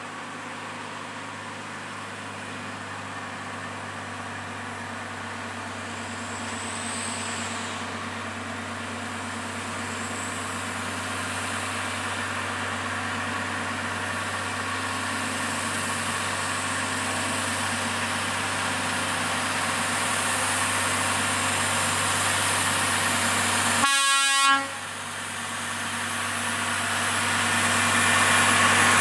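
Heavy Volvo 480 truck engine working hard up a steep grade, growing steadily louder as the truck approaches. A short horn toot sounds a few seconds before the end.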